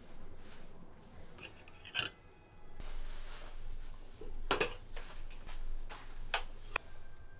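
Wooden clothes hangers clacking and clinking against their metal hook and rail as one is taken down, with a rustle of fabric as a fleece jacket is hung on it. There are several sharp clacks in the second half.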